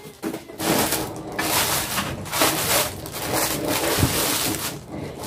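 Thin plastic wrapping bag crinkling and rustling as it is handled and pulled off a packaged appliance, with a thump about four seconds in.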